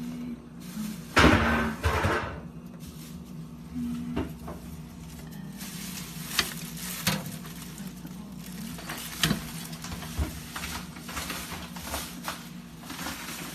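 Knocks and clatter of handling, with scattered sharp clicks, over a steady low hum; the two loudest knocks come about a second and two seconds in.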